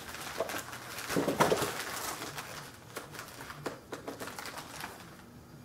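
Plastic packaging rustling and crinkling, with small clicks, as the small parts of a model kit are handled; loudest a little over a second in, dying away near the end.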